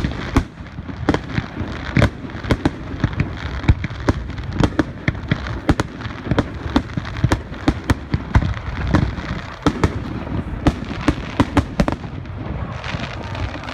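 Fireworks exploding in a rapid, irregular string of sharp bangs and crackles, often several a second, over a continuous low rumble.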